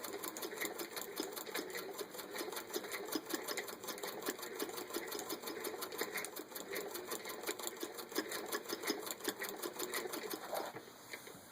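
Antique Singer 206D zigzag sewing machine, driven by a hand crank, running steadily and sewing a zigzag stitch with its stitch width being widened by hand. It makes an even mechanical clatter of about five or six needle strokes a second and stops shortly before the end.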